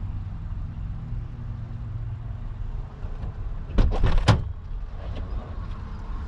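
Car engine idling steadily as a low rumble, with a quick cluster of sharp knocks about four seconds in.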